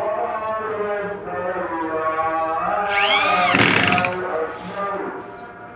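Background music with sustained horn-like tones, and about three seconds in an electric drill briefly whirs, its pitch rising and falling, as it drives a screw into a wooden moulding.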